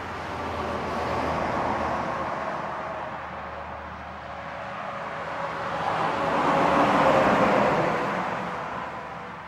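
Highway traffic: engine and tyre noise of a semi-trailer truck towing a tanker as it approaches along the highway, swelling to its loudest about seven seconds in and then easing. A smaller rise in the noise comes early from a passing car.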